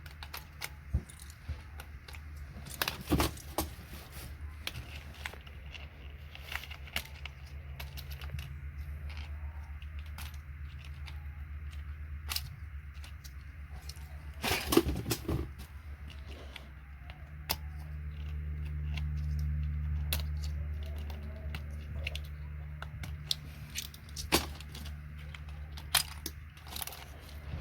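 Plastic keycaps being pried and pulled off a vintage keyboard: irregular clicks and clatter, louder at about three seconds in and again about fifteen seconds in. A steady low hum underneath swells for a few seconds past the middle.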